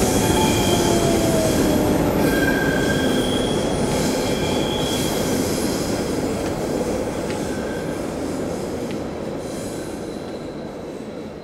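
A train passing with its wheels squealing, a falling whine at first, the noise slowly fading away.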